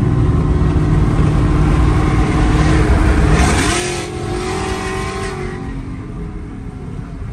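Pickup truck's loud modified exhaust under hard acceleration. The engine note climbs about three and a half seconds in, then settles into a steadier, quieter drone.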